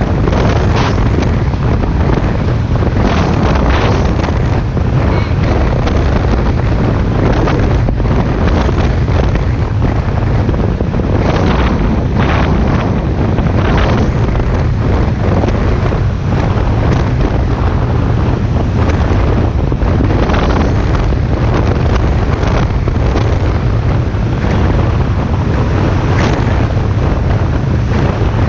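Wind buffeting the camera microphone on a speedboat under way at speed, over a steady low rumble of the boat and rushing water, with irregular louder gusts every second or two.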